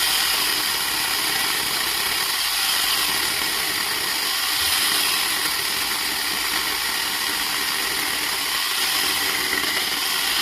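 Electric angle grinder fitted with an 11.5-inch chainsaw attachment, running steadily at full speed as a constant whine with chain noise while cutting wood.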